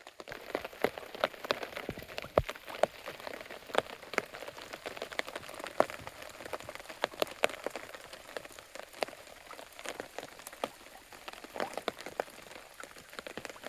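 Rain falling on a tarp, a steady hiss with many separate drops striking at irregular moments, some much louder than the rest.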